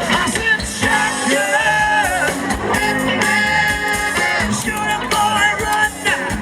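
Live soul and rock-and-roll band playing up-tempo, with singing, guitar, drums and a horn section.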